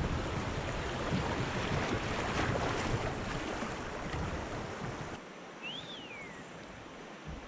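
Swollen river water rushing past a kayak in fast current, with wind rumbling on the microphone. The rush drops off suddenly about five seconds in, and a single short whistle that rises and falls is heard just after.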